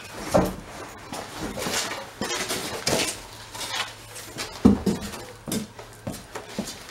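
Irregular clinks, knocks and rattles of metal grill parts and foam packing being handled and lifted out of a cardboard box, with one sharper knock a little before five seconds in.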